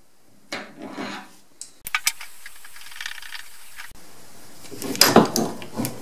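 Channel lock pliers and a brass hose fitting clicking and scraping as a washing machine's fill hose is unscrewed from its inlet port, with a cluster of sharp metallic knocks about five seconds in.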